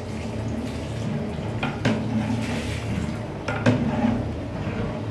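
Kitchen utensils and cookware clattering, with two sharp knocks about two and three and a half seconds in, over a steady low hum.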